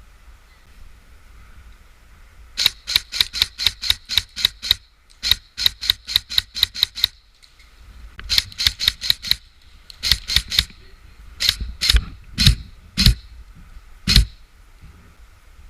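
Airsoft guns firing: several strings of rapid clicking shots at about five a second, then a few single, heavier shots near the end.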